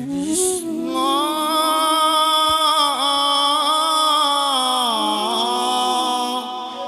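Male voices of an Assamese naam-prasanga devotional chant holding one long, drawn-out sung note with slight wavering. The pitch drops about five seconds in.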